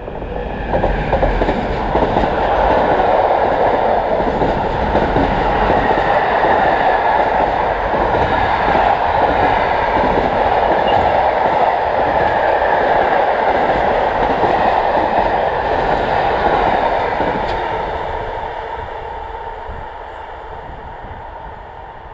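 Freight train passing: a steady rumble of wheels on rail from a long train of container wagons, with some clickety-clack. It fades away over the last few seconds as the train moves off.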